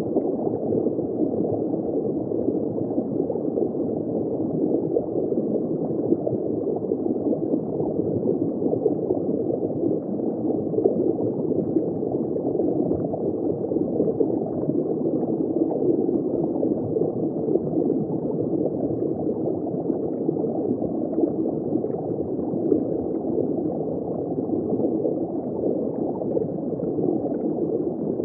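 Steady, muffled gurgling and rushing of circulating water in a saltwater reef aquarium, heard from underwater in the tank.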